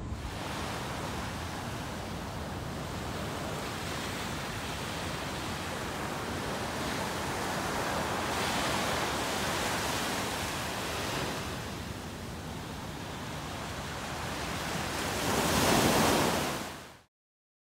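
Surf: small waves breaking and washing up a sandy beach, a steady hiss that swells and ebbs, loudest as a wave breaks near the end, then cuts off suddenly.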